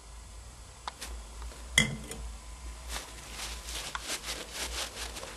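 Light handling clinks and clicks, a small metal bolt and glassware being moved about; the loudest is a single clink with a short ring about two seconds in.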